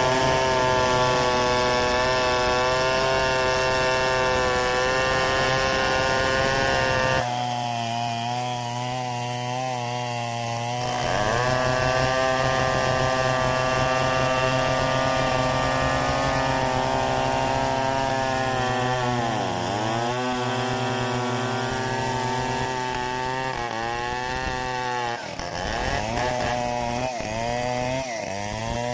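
Stihl 070 two-stroke chainsaw running at high revs, cutting through mahogany. About a quarter of the way in the sound goes thinner and quieter for a few seconds. Near the end the engine pitch sags and recovers several times as the cut loads it.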